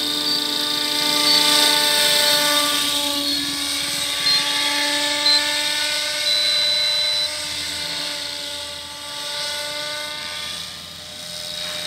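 Electric RC helicopter on Align T-REX 700 DFC mechanics flying: a steady whine of electric motor and rotors, with several tones that shift a little in pitch, growing quieter for a couple of seconds near the end as it moves off. Short high beeps sound about once a second over the first seven seconds, one of them held for about a second.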